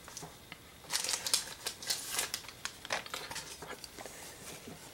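Hard plastic graded-card slab in a thin plastic sleeve being picked up and handled: a run of crinkles and light clicks, most of them between about one and three and a half seconds in.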